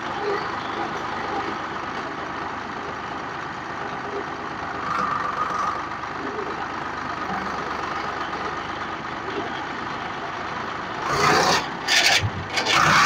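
Swaraj 735 FE tractor's three-cylinder diesel engine and gearbox running steadily in reverse gear, recorded close to the transmission. The noise is the reverse-gear complaint that shows on releasing the throttle, whose cause the mechanic does not yet know. Several loud knocks or rubbing bursts come near the end.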